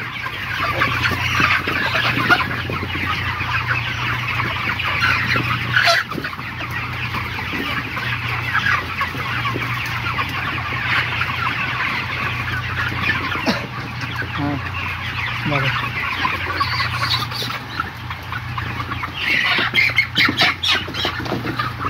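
Dense, continuous clucking and chatter of a large flock of 35-day-old broiler chickens, over a steady low hum.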